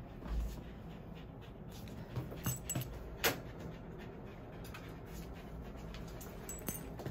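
Handling noise of a dog on a steel exam table: the metal tags on its collar jingle and clink, with a dull thump near the start and scattered sharp clicks and knocks, the sharpest about three seconds in.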